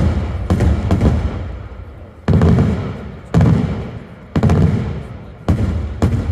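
Daytime aerial fireworks bursting overhead: a rapid string of loud bangs, about one a second, each trailing off over about a second before the next.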